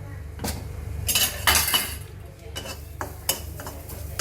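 Metal spoon scraping and clinking against a pan while grated coconut is stirred and lightly roasted in it: a stretch of scraping, then a run of sharp taps on the pan in the second half.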